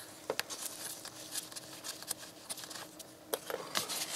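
Plastic motor-oil bottle handled in nitrile-gloved hands: sharp clicks as the red cap comes off its spout, with crinkly rustling of the gloves and bottle. A faint steady hum runs underneath.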